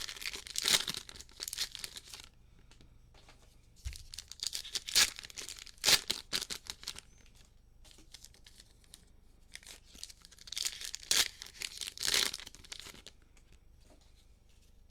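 Plastic-wrapped trading card packs being torn open by hand: three spells of tearing and crinkling wrapper, a few seconds apart.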